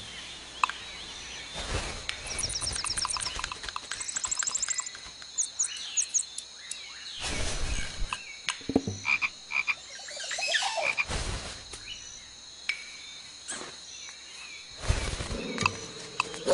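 A frog croaking in quick pulsed trills, twice in the first five seconds and in scattered chirps after. Several louder bursts of paper crinkling and rustling break in among the calls.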